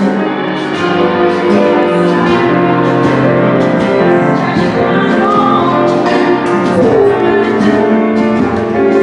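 Live group music-making: many voices singing together with flute and other instruments in a dense, sustained texture of held notes that shift in pitch.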